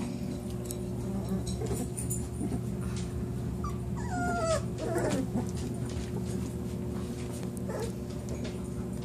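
Lagotto Romagnolo puppies whimpering: a few short falling whines about four seconds in and another near the end, over light rustling and a steady low hum.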